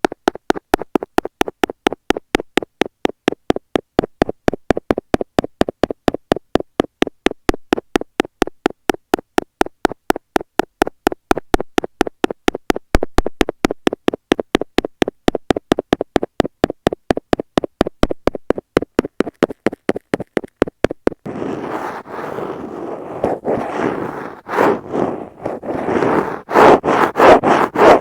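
A stainless steel ear pick tapping rapidly and evenly on an earphone microphone, about four to five dull taps a second. About 21 seconds in it switches to scratching and scraping over the mic in quick strokes, which get louder near the end.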